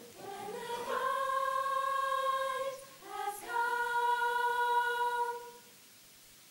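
All-girl a cappella group singing two long held notes with a short break between them. The singing stops about a second before the end, leaving near quiet.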